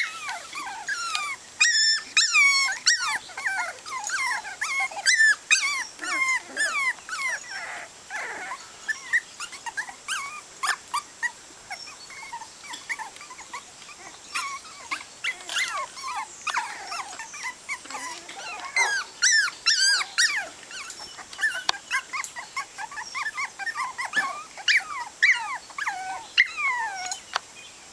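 A litter of Cava-lon puppies whimpering and crying together, many short high-pitched cries overlapping, most of them sliding down in pitch, keeping on without a break.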